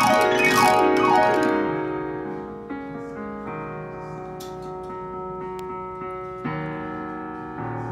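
Solo piano: quick downward runs in the first second or so, then held chords that change a few times and slowly fade.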